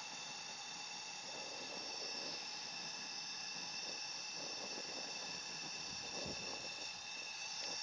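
Homemade foundry furnace burner running at full blast: a steady hiss with several high steady whistling tones over it.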